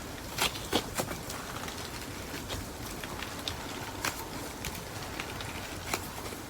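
Slime mixed with paper clay being squished and kneaded by hand, giving irregular sticky clicks and pops over a faint steady hiss.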